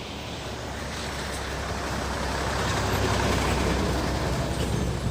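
Excavator's diesel engine running under load as the machine creeps forward, growing louder over the first few seconds and then easing a little.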